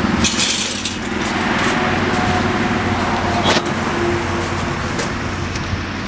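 Steady low motor hum under a noisy background, with brief rustling in the first second and a sharp knock about three and a half seconds in.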